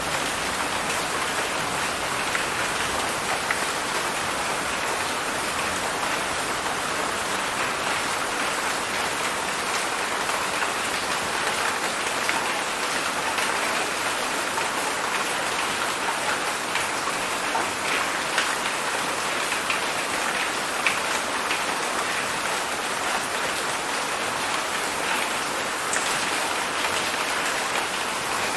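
Heavy summer rain falling steadily: a dense, even hiss of downpour with scattered individual drop hits.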